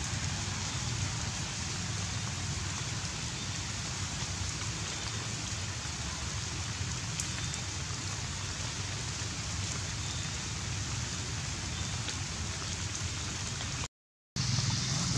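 A steady hiss with a low rumble underneath. It cuts out completely for a moment near the end, then comes back.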